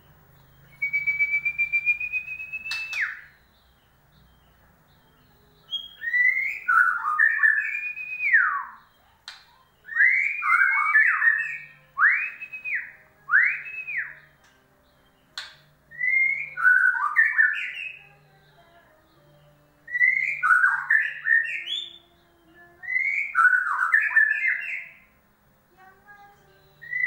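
White-rumped shama singing: one long, slightly rising whistled trill that ends in a quick downward note, then short phrases of loud fluting whistles every two to four seconds.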